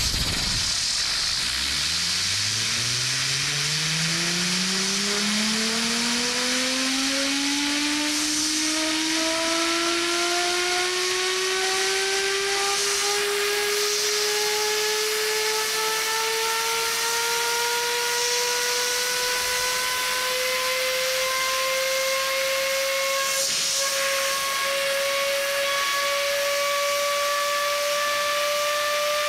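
Compressed air at about 80 psi hissing from an air blow gun nozzle against a toy gyroscope's rotor, spinning it up. A whine from the spinning rotor climbs steadily in pitch, quickly at first and then more slowly, as the gyroscope gains speed.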